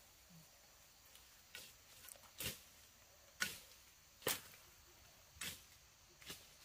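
A digging tool striking into the ground over and over, about one blow a second, the middle strikes the hardest: tubers being dug out.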